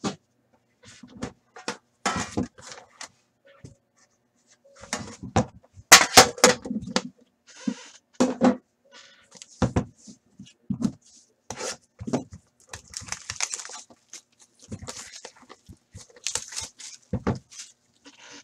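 Hands handling a sealed hockey card box and its metal presentation tin: irregular taps, clicks, scrapes and rustles of cardboard against metal, loudest as a cluster of sharp clicks and rustling about six seconds in.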